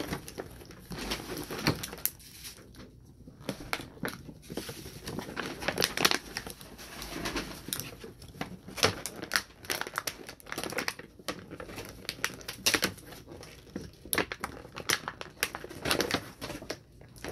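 Thin clear plastic blister packaging crinkling and crackling in irregular clicks as small toy figures are pushed out of it by hand.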